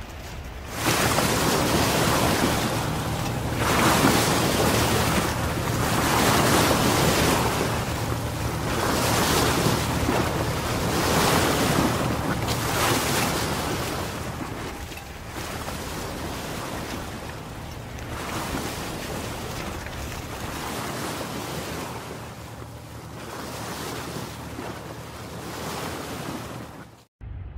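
Sea surf breaking and washing ashore, swelling and fading every few seconds, with wind rumbling on the microphone. The sound cuts off suddenly near the end.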